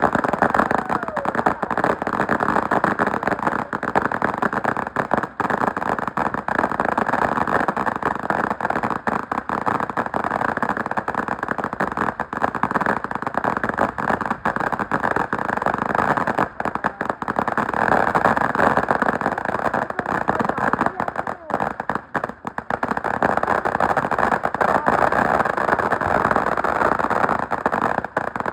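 Fireworks going off in a dense, unbroken barrage of crackles and bangs, with a brief lull about two-thirds of the way through.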